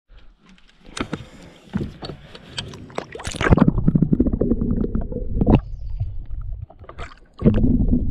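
Water splashing as a smallmouth bass is lowered over the side of a boat and released, with a few knocks in the first seconds. This gives way to a loud, muffled rumble of water heard from under the surface, which drops out briefly near the end.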